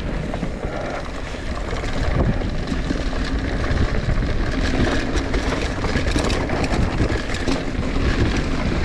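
Mountain bike rolling down a dirt trail, with its tyres running over the ground and many short rattles and knocks from the bike, and wind buffeting the microphone. It gets louder about two seconds in.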